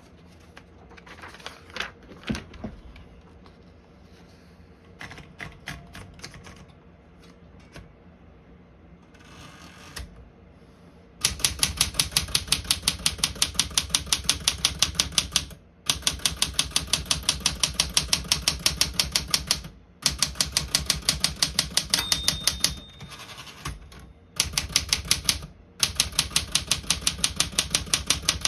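Manual typewriter, a 1964 Smith-Corona Galaxie portable, being typed on. A few scattered clicks come first, then about eleven seconds in fast, even runs of keystrokes begin, broken by short pauses, and the bell rings briefly a little past the two-thirds mark.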